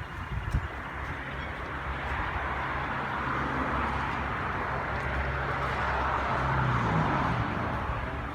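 A vehicle passing by: a rushing noise that builds over several seconds and eases off near the end, over a steady low hum, with a couple of soft knocks just after the start.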